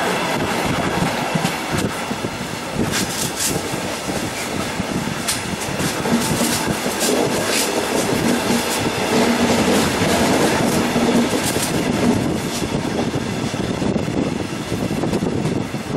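Passenger train running along the track, heard from an open window of the moving carriage: a steady rumble and wind rush, with sharp wheel clicks over the rail joints every so often.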